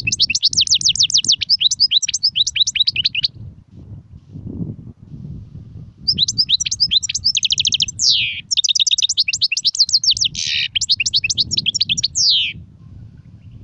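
European goldfinch singing in rapid, high twittering trills with a few quick falling notes. The song comes in a phrase that stops about three seconds in, then resumes from about six to twelve and a half seconds. A low background rumble runs underneath.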